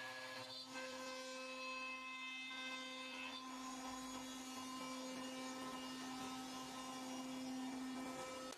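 CNC router spindle running with a steady whine, its pitch lines shifting a little about half a second and three and a half seconds in.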